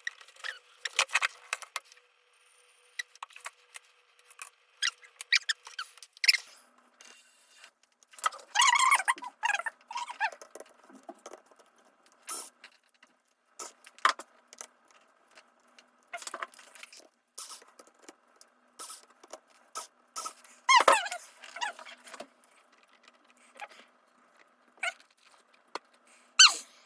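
Hands working on a ThinkPad T520 laptop's disassembly: scattered clicks and taps of plastic and metal parts and tools, with longer scraping sounds about a third of the way in and again later.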